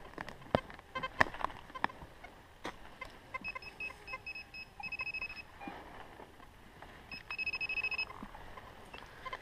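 Metal detector giving two bursts of rapid high-pitched electronic beeps, a target signal, one about a third of the way in and one near the end. A few sharp knocks come in the first few seconds, the loudest about a second in.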